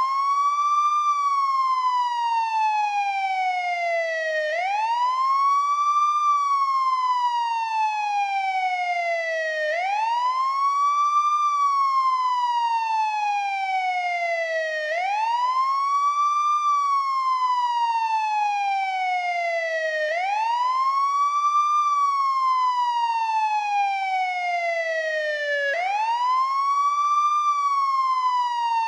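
American police siren on the wail tone: the pitch rises quickly for about a second and a half, then falls slowly for about three and a half seconds, repeating about every five seconds.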